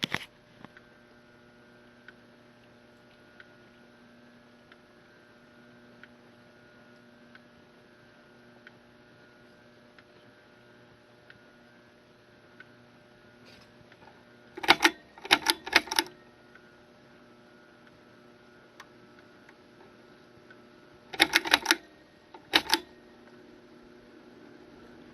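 Vintage 1989 ceiling fan motor running at a lower speed with a slight steady electrical buzz, the hum it makes on medium and low, plus a faint tick repeating about every second and a third. Two short clusters of sharp rattling clicks come about midway and again near the end.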